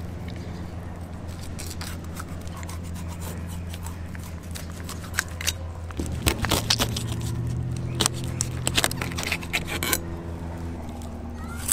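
A knife cutting into a California halibut on a plastic cutting board: a string of crisp clicks and scrapes as the blade slices flesh and catches on bone and skin, busiest from about six to nine seconds in.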